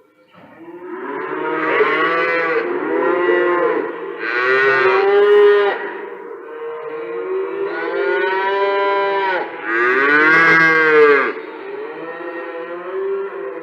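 Several cattle mooing, with long, overlapping calls that bend in pitch. The loudest moos come about a third of the way in and again past the middle.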